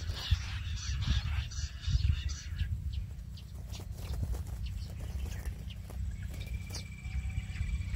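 Jungle bush quail calling, a dense run of short high notes that fades out about two and a half seconds in, over a steady wind rumble on the microphone. Near the end a fast, even trill starts up.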